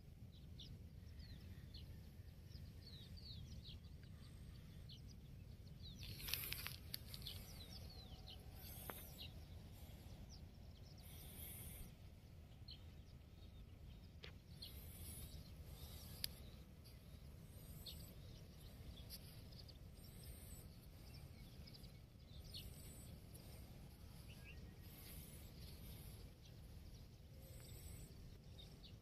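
Faint outdoor ambience: small birds chirping now and then, most busily about six seconds in, over a low steady rumble.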